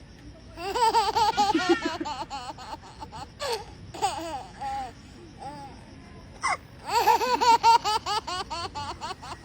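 Two bursts of quick, high-pitched giggling laughter, with a baby's short sharp hiccups between them, about three and a half and six and a half seconds in.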